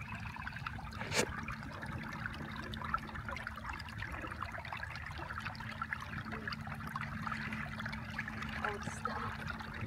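Water trickling and lapping steadily, under a constant low hum, with one sharp click about a second in.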